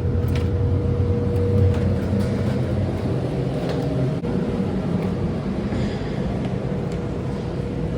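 Car driving: a steady low rumble of road and engine noise with a faint steady hum and a few light clicks.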